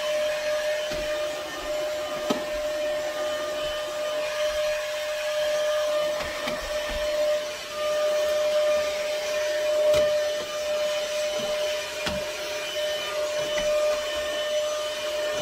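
IonVac cordless handheld vacuum running steadily with a constant whine, sucking dead flies and debris off a window sill. A few light knocks sound over it.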